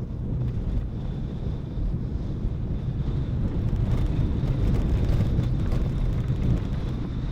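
Car driving along a road: a steady low rumble of engine and tyres, with wind noise and a faint steady high whine.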